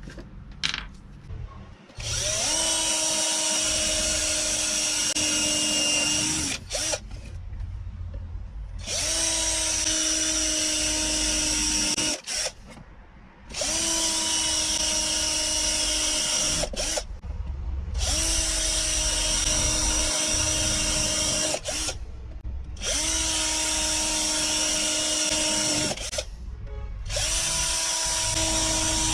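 A small electric power tool motor running at a steady pitch in about six runs of three to five seconds each, stopping briefly between runs.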